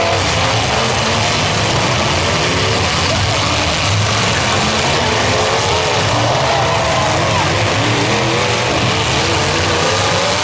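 Several demolition derby cars' engines running and revving together, their pitches wavering up and down over a steady din.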